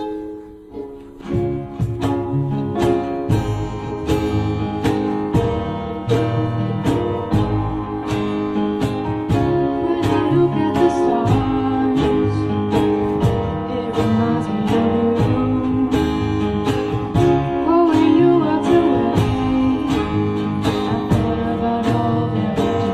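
A band playing a song with strummed acoustic guitar, bass and a steady beat. The full band comes in about a second in, after a softer start.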